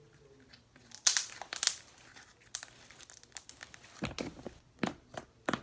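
Glue slime being squished and stretched in the hands, giving an irregular run of sharp crackles and pops.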